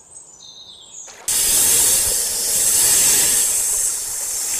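A loud, steady hiss, a dubbed snake-hiss sound effect, starts abruptly about a second in and holds steady. Before it there is a quiet moment with a few faint high chirps.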